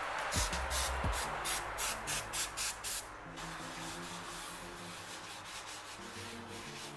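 Aerosol cooking spray hissing onto a nonstick crepe pan, then a paper towel rubbed over the pan in quick strokes, about five a second, easing into a softer, steadier rubbing. Soft background music runs under it.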